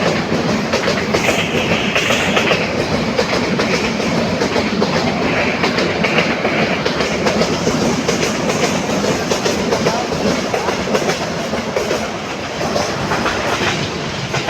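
Loud, steady clattering rumble that eases off near the end.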